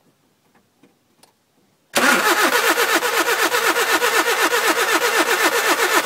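Nissan Micra K11's engine cranking over on the starter from about two seconds in, a loud, fast, even rhythm of compression strokes, while starting fluid is sprayed into the intake. The car cranks but won't start after sitting for two years.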